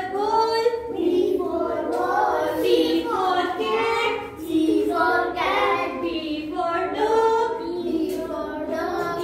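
A group of young children singing together, with a woman's voice among them.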